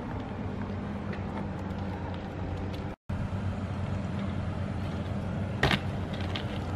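A steady low hum with a fixed pitch, broken by a brief dropout about three seconds in. A single sharp knock of the BMX bike on the concrete follows a little before the end.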